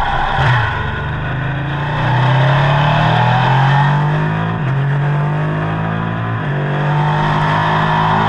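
Ducati Panigale superbike engine through a Termignoni exhaust, under way and accelerating: the engine note climbs steadily and drops sharply at each upshift, three times.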